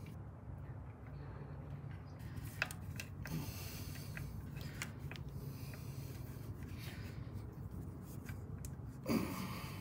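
Hands handling a rubber breather hose and its small fitting: light rubbing and small clicks over a steady low hum, with a louder rush of noise near the end.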